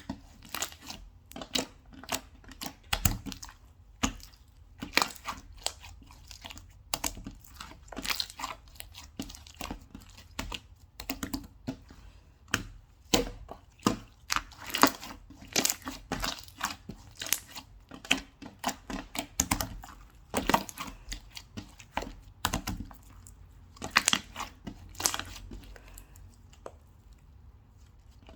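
Slime being squished, poked and stretched by hand, giving a fast, irregular run of small crackling pops and sticky clicks. The pops thin out near the end.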